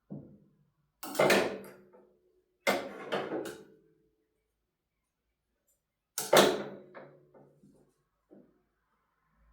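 Three short bursts of knocking and clattering, like hard objects being handled and set down: near the start, about three seconds in, and about six seconds in.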